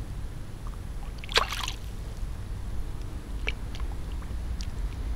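A single sharp splash in shallow river water about a second and a half in, as a caught ide is let go and slips back into the river, over a steady low rumble.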